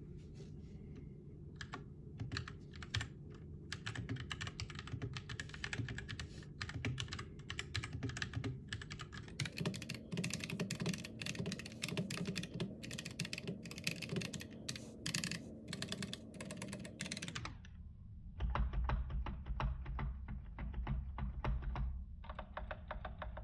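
Mechanical keyboard with brown (tactile) switches being typed on fast, a dense run of keystroke clacks. The sound changes abruptly twice, about nine and seventeen seconds in, as if cut between takes, and a steady low hum runs underneath.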